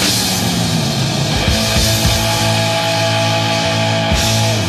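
Heavy metal band recording: distorted electric guitars and bass holding long, sustained chords over drum hits.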